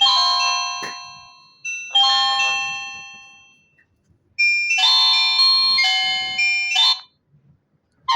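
Nokia mobile phone ringtones playing in clear, bell-like synthesized notes. A short phrase rings out and fades, a single note sounds about two seconds in, and a quicker run of notes starts after about four seconds and stops abruptly near seven seconds.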